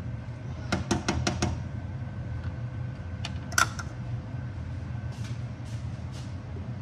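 A cooking utensil tapped about five times in quick succession against a frying pan, then two sharper knocks a couple of seconds later, the second the loudest, over a steady low hum.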